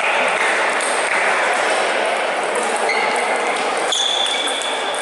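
Busy table tennis hall: a steady wash of background chatter and ping-pong ball clicks from other tables. A ball is struck about four seconds in, and there are a few short high squeaks near the end.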